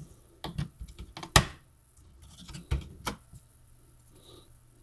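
A few sharp plastic clicks and taps from handling a laptop's opened-up internals, the loudest about a second and a half in, with smaller ones before and after.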